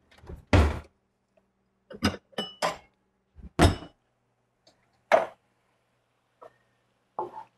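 Kitchenware being handled: a string of short, separate clinks and knocks as utensils are rattled in a drawer and a bowl is set down on the stovetop.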